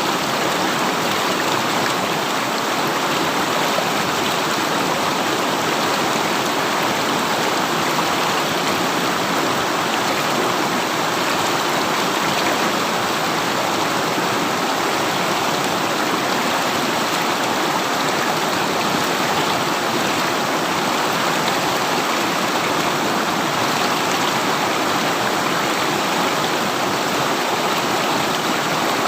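River water rushing and burbling steadily, a constant full-bodied flow with no breaks.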